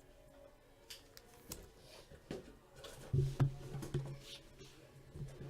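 Trading cards being handled on a table: soft rustles and a scattering of light clicks and taps, with a faint low murmur about three seconds in.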